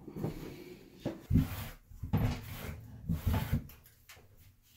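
Grout float scraping and knocking against a tiled shower wall as grout is worked into the joints, in a series of uneven strokes that die away near the end.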